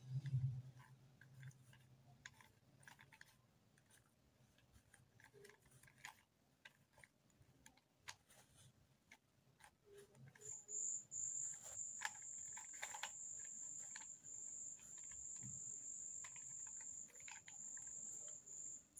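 Plastic 3x3x3 Rubik's cube being twisted by hand: quiet, irregular clicks and rattles as its layers turn. About halfway through, a steady high-pitched tone starts and holds, and a low hum is heard in the first couple of seconds.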